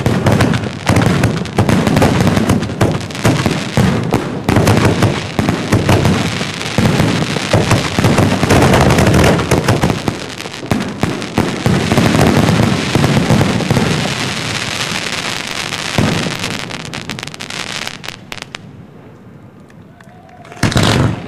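Aerial firework shells bursting in a dense barrage of rapid bangs and crackling stars. The barrage thins out and dies away about 18 seconds in, and one loud burst follows near the end.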